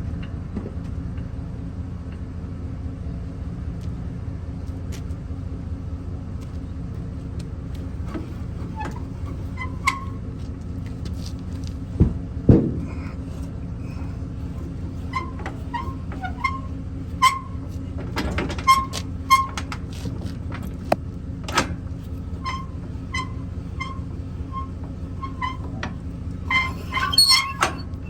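Steady drive noise of a vehicle towing a trailer. From about the middle on it is broken by scattered knocks and rattles and by many short squeaks, busiest near the end.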